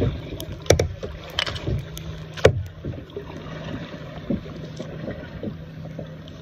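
Kayak paddling: a double-bladed paddle dipping and splashing in the water, with a few sharp hits in the first half.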